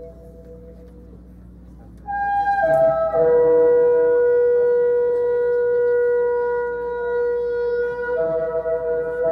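Instrumental music of long held chords that sound like wind instruments. A faint held tone comes first, then a louder chord enters about two seconds in and slides into a new chord held for about five seconds. The chord changes again near the end.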